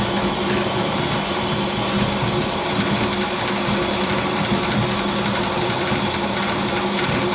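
Electric drum drain-cleaning machine running with a steady motor hum as its rotating spiral cable is fed into a clogged drain pipe.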